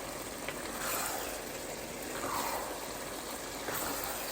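Ground beef with onions and garlic cooking in a pan: a steady sizzle with a few soft swells.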